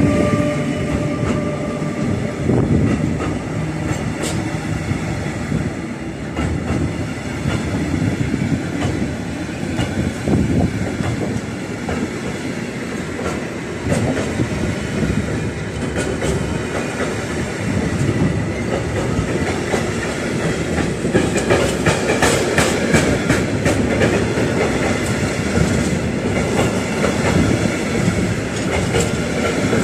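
Container freight train's wagons rolling past, a steady rumble with wheels clacking over the rail joints. The clatter gets sharper and busier about two-thirds of the way through.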